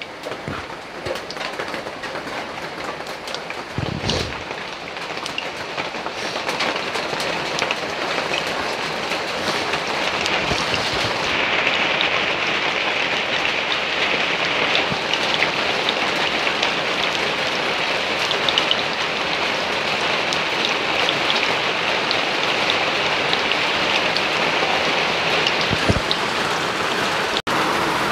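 Sunflower oil heating in a hot kadai, sizzling with a dense patter of fine crackles. The sizzle grows louder over the first ten seconds or so, then holds steady as the oil comes up to frying heat.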